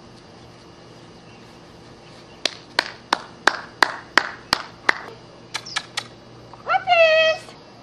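A run of about eight sharp clicks, roughly three a second, then two fainter ones, followed by a short pitched call that rises at its start and holds briefly.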